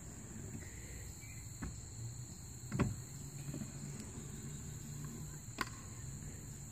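Faint outdoor ambience of crickets chirring steadily in a high, thin tone, with a few faint knocks, the loudest about three seconds in, and a low hum from about two seconds in.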